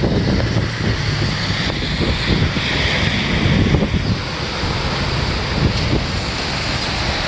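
Rushing floodwater and heavy rain in a steady hiss, with wind buffeting the microphone in gusty rumbles.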